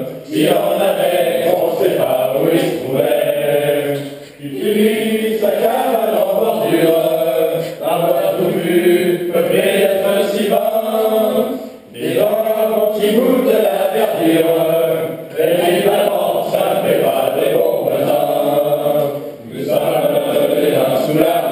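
Several voices chanting together in unison, in repeated phrases of about four seconds with short breaks between them.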